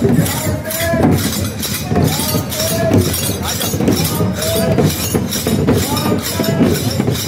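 Dammam percussion of a Muharram matam procession, with even strikes about four a second and a crowd of mourners chanting over it in repeated rising-and-falling calls.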